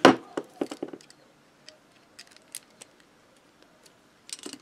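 Metal clicks and ticks of a spanner being worked on the nuts of a Motobécane AV 89 moped engine as they are loosened slightly. A sharp click comes right at the start, then scattered lighter ticks, and a cluster of clicks near the end.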